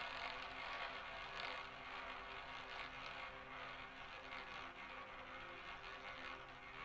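Roulette ball running around the wheel's track, a steady whirring that slowly fades as it loses speed, with light ticks creeping in during the second half.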